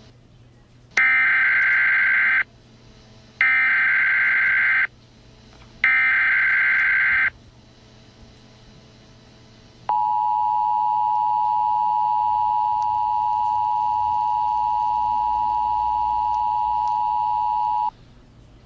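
Emergency Alert System header: three bursts of SAME digital data tones, each about a second and a half long with about a second between them, then the steady two-tone EAS attention signal held for about eight seconds. Together they mark the start of a new emergency alert.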